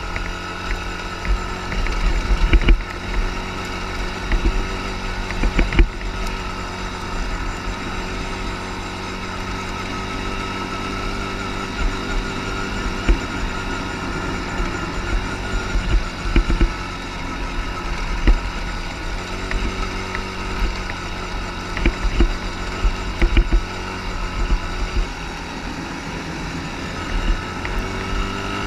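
ATV engine running steadily while riding, its pitch holding fairly even, with scattered short thuds over it.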